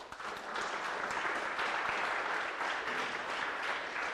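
Audience applauding, building up over the first half second and then holding steady.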